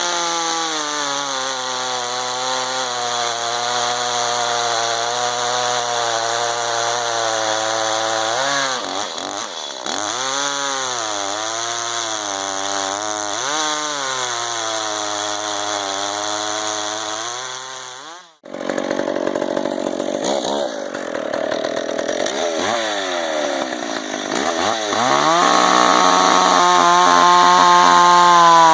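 Two-stroke chainsaw running and cutting wood, its engine pitch sagging and recovering several times under load. The sound breaks off abruptly about 18 seconds in, then a saw runs again and speeds up to a steady higher pitch near the end.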